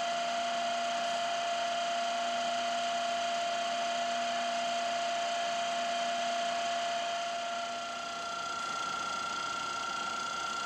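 1977 Ikeda RM-1375 radial arm drill's spindle drive running at a low spindle speed with a steady whine. About seven seconds in, the level dips and the tone changes, with a higher whine coming up, as the spindle is shifted to a faster speed.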